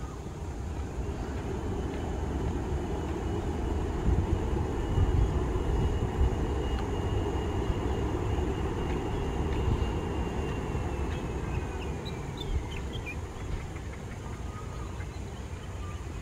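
Boeing 737 twin-jet airliner on its landing roll: a steady low engine rumble with a thin high whine. About twelve seconds in, the whine drops in pitch as the engines spool down.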